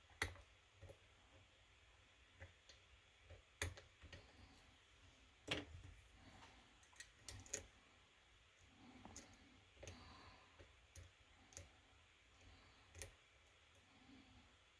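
Faint, irregular metallic clicks of a lock pick and tension wrench working the pins of a kick-cylinder lock, about a dozen scattered ticks over quiet room tone.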